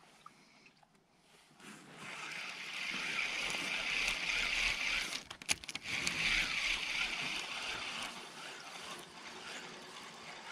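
Spinning reel being cranked to retrieve line: a steady whir that starts about two seconds in, with a regular pulse and a few sharp clicks midway.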